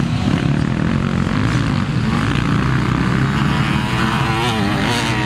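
Motocross dirt bike engines running on the track. Near the end a bike close by gets louder, its engine pitch wobbling rapidly up and down as the rider works the throttle.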